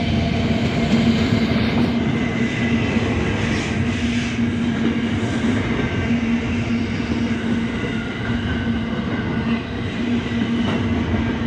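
Diesel-hauled container freight train passing close by: the locomotive goes past at the start, then a long string of container wagons rolls past with a steady rumble and an even low hum.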